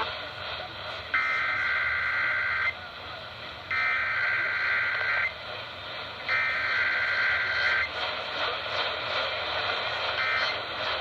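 Emergency Alert System SAME header: three bursts of screeching digital data tones, each about a second and a half long and about a second apart, with radio static between them. They open an EAS Required Weekly Test. A shorter burst begins near the end.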